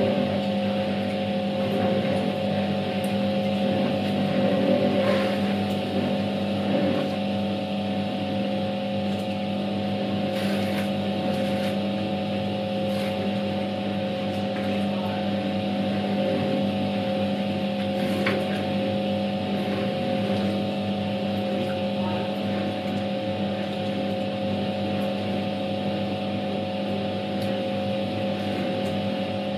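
Światowit M4 impeller washing machine running, its SED-110-4 capacitor motor humming steadily while the impeller churns water and clothes in the tub. A few faint clicks come through now and then.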